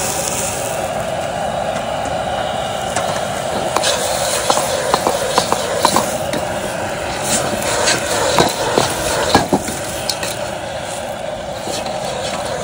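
Stir-frying fern shoots and freshwater clams in a steel wok over a portable gas burner: the burner's steady hiss, with a ladle and spatula clinking and scraping against the wok from about four seconds in.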